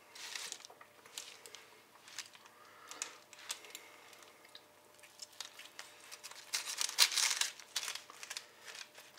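A knife slicing through a roasted ribeye steak on parchment paper, the blade scraping and crinkling the paper in short irregular strokes, with a louder run of scraping about seven seconds in.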